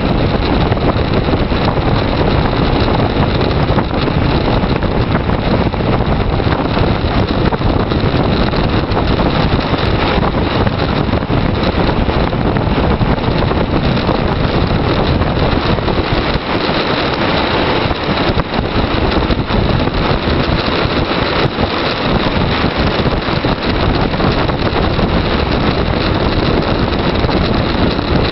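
Loud, steady wind rush buffeting the microphone of a camera on a bicycle coasting fast down a mountain road.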